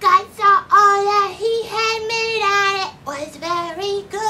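A high, childlike puppet-character voice singing a tune in long held notes, with a short break about three seconds in.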